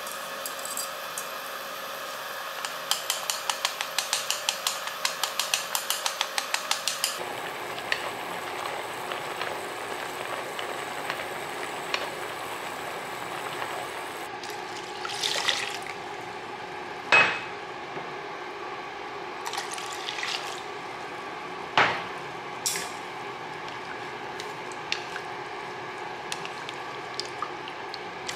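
A pot of water boiling steadily around matcha noodles, with a bubbling hiss throughout. A rapid run of ticks comes a few seconds in, and a few sharp clicks against the pot come later, the loudest about halfway through.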